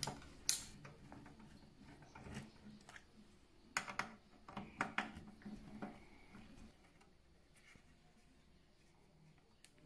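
Sharp clicks and light taps of plastic and metal parts being handled and fitted back into an opened PlayStation 4 Pro: one loud click about half a second in, a cluster of taps around four to six seconds, then it goes quieter.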